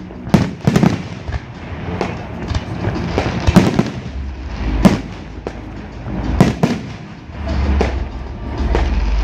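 Aerial fireworks shells bursting: a string of sharp bangs at irregular intervals, some in quick pairs, with a low rumble building near the end.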